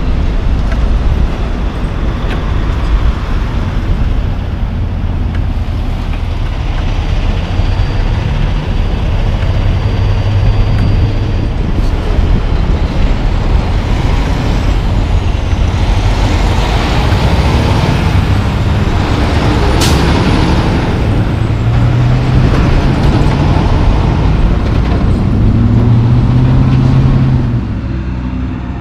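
Diesel engines of loaded logging trucks pulling long logs, running under load with the engine note rising several times as they accelerate through the gears. A sharp click about two-thirds of the way through.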